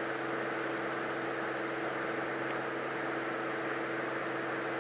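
Steady in-flight drone of a Cirrus SR22's six-cylinder piston engine and propeller, heard muffled through the headset intercom as a constant hum with a few steady low tones and a hiss over it.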